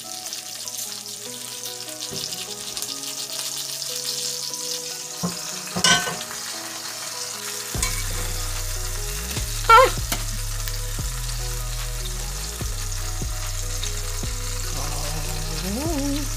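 Breaded oyster mushrooms sizzling steadily in hot oil in a cast iron skillet. A smaller cast iron skillet is set on top to press them down, giving sharp metallic clanks and scrapes about six and ten seconds in; the second is the loudest.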